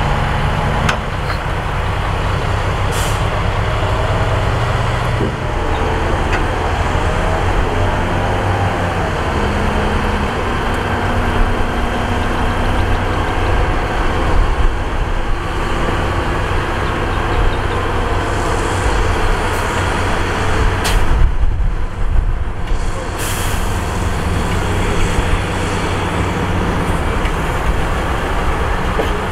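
Heavy diesel dump-truck engine running under load, its note rising and falling, with a couple of short air-brake hisses.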